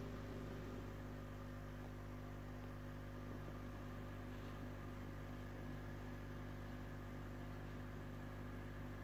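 Steady low electrical hum of running aquarium equipment, with a faint hiss over it.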